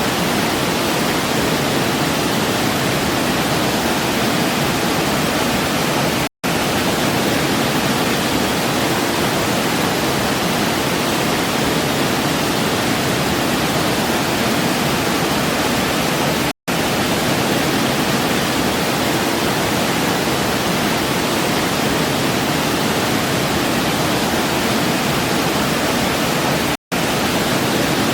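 Waterfall: a steady, even rush of falling water, cut by three split-second dropouts about ten seconds apart.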